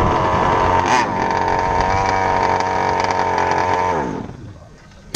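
Small RC car engine running steadily at idle, wavering a little in pitch; about four seconds in its pitch sinks and the sound dies away as the engine shuts off.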